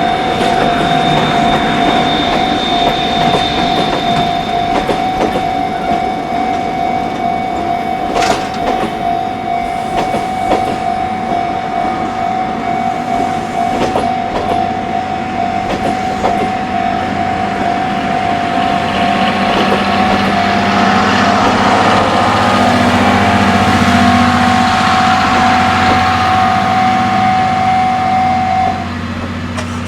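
Japanese railway level-crossing alarm sounding steadily while a Chichibu Railway train passes through the crossing, with occasional sharp clacks from the wheels. The train's running noise grows louder in the second half. The crossing alarm stops shortly before the end.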